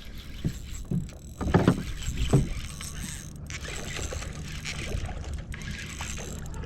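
Water and wind noise around a small skiff with a steady low rumble, broken by a few short knocks or splashes about one and a half and two and a half seconds in.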